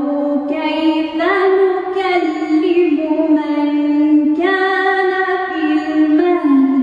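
A woman reciting the Qur'an in Arabic as unaccompanied melodic chant, holding long notes that step up and down in pitch.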